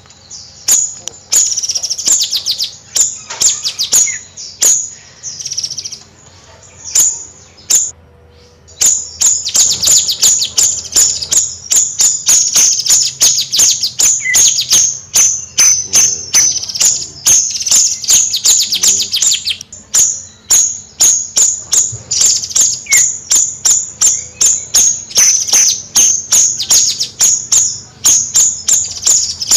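A bayeman songbird chattering in long, rapid runs of sharp, high chips, with a short break about eight seconds in.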